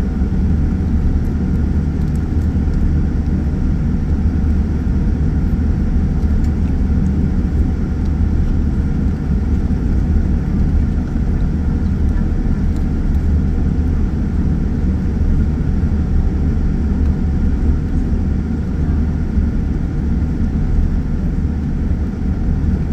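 Cabin noise inside a Boeing 787-9 taxiing: a steady low rumble from its Rolls-Royce Trent 1000 engines at taxi power, with a faint steady hum above it.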